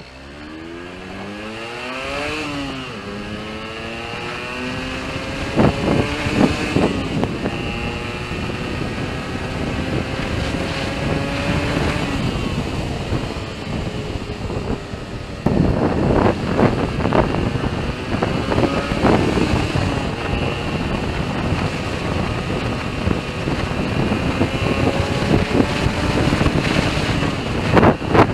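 Yamaha RD125LC two-stroke single-cylinder engine running under load, its pitch climbing, dropping back and climbing again, broken by ragged spluttering bursts: the engine is misfiring.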